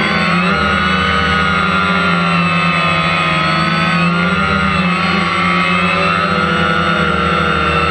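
DJI Phantom quadcopter's motors and propellers whirring as it hovers, heard close up from the GoPro mounted on the drone itself; a steady, loud whine whose pitch wavers slightly as the motors adjust to hold position.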